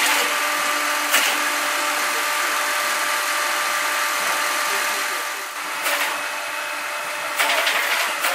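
Firewood saw-splitter running with its band saw cutting through a log. The machine noise is steady, with faint hum tones and a sharp knock about a second in. The noise drops about five and a half seconds in, and louder, uneven machine noise comes back near the end.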